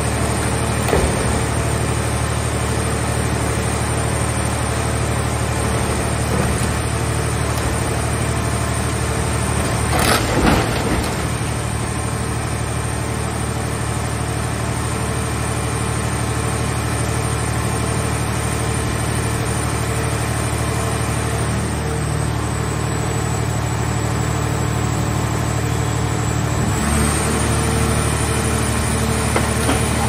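Engine-driven hydraulic power unit of a mobile car baler running steadily under load, with a brief burst of crunching metal about ten seconds in as the car shell is crushed. The drone's note shifts near the end as the baler's lid begins to close.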